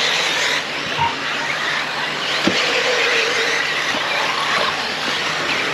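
Several brushless electric off-road RC cars racing, their motors whining up and down in pitch as they accelerate and brake, over a steady hiss of drivetrain and tyres, with a few short knocks.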